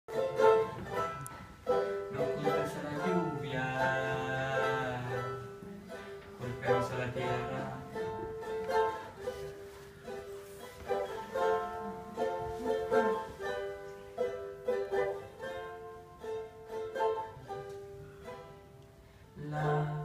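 A small-bodied acoustic string instrument is strummed and picked solo, playing the instrumental introduction to a song.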